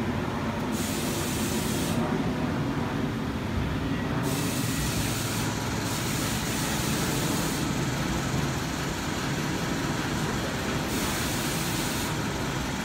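Steady urban background rumble of traffic and nearby industry, with a high hiss that comes and goes every few seconds.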